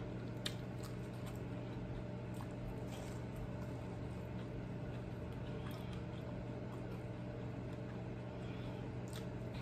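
Faint chewing and small mouth clicks of someone eating a breaded fried chicken wing, over a steady low hum.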